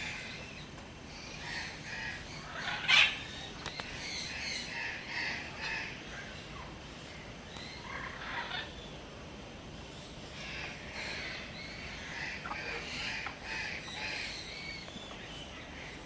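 Many parrots chattering and calling, a dense run of short chirps, with one loud harsh call about three seconds in.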